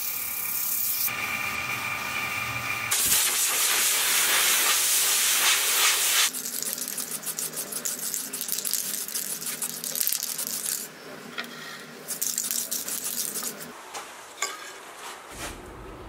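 Wood lathe spinning a snakewood vessel while it is hand-sanded or polished: a steady hiss over the lathe's motor whine, changing abruptly a few times and loudest a few seconds in.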